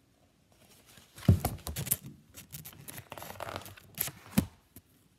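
Paper pages of a picture book being handled and turned: papery rustling and crinkling with several sharp taps, the loudest about a second in and another near the end.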